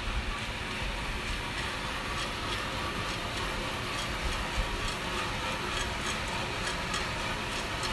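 Coffee roaster running with a steady whooshing noise as pale coffee beans tumble in its drum, and a regular light ticking, about two or three ticks a second.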